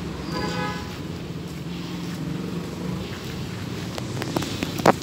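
Outdoor street ambience: a steady low rumble of vehicle engine noise with some wind on the microphone. There is a single sharp click near the end.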